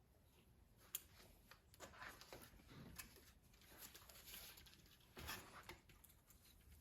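Faint handling noises: a few light clicks and soft rustling as small parts of a 1/18-scale RC crawler's steering are worked by hand to fit an aluminium steering link.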